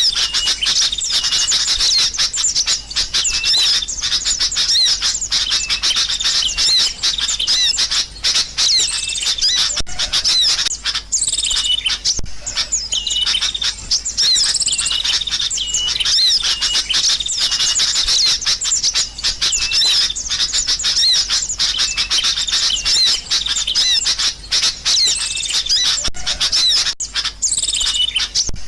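Sooty-headed bulbuls chattering noisily, a dense run of overlapping high chirps and warbling calls without a break.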